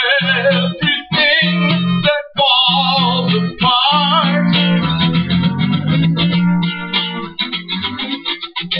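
Guitar-led instrumental break of a song, with wavering lead lines over steady low notes.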